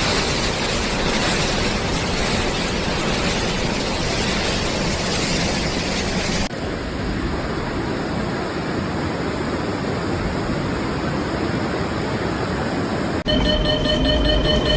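Steady rushing noise of water, in three stretches joined by abrupt cuts about six and a half and thirteen seconds in; faint steady tones sound over the last stretch.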